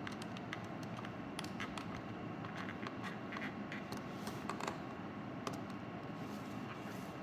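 Scattered small clicks and scratches of a handheld GPS unit's parts being handled and fitted by hand, over a steady low hiss.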